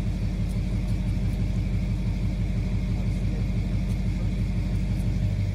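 Pickup truck engine running at low revs with a steady low rumble and a fast even pulse, while it slowly pulls a heavy trailer.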